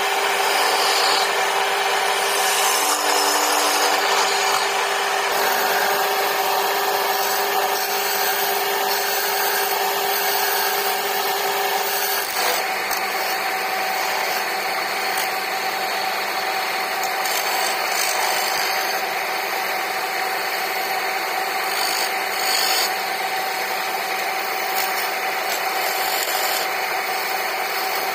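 Wood lathe running with a steady motor hum while a hand-held turning chisel scrapes and cuts into the spinning wood, a continuous rasping noise. The hum changes pitch once about twelve seconds in.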